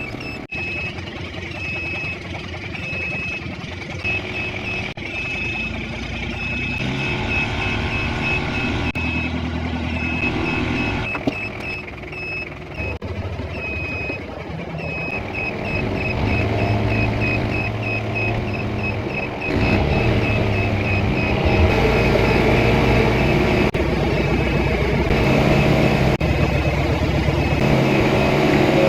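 Off-road vehicle engine running, its pitch and level shifting as it works, with a short high beep repeating a little faster than once a second.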